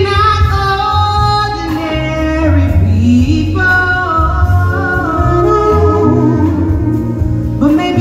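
A woman singing solo in long held notes with vibrato, stepping and sliding from pitch to pitch, over a low bass line.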